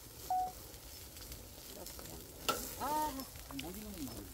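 Pork belly sizzling steadily on a grill over a charcoal fire. A short pitched vocal sound comes in about three seconds in.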